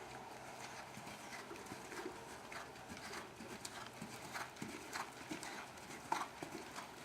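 Horse's hoofbeats as it is ridden: a run of uneven knocks, two or three a second.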